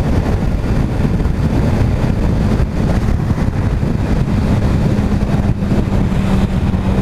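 Kawasaki ZX-6R 636 inline-four sport bike running at steady highway speed, mixed with wind rushing over the microphone. A steady engine note holds from about two seconds in.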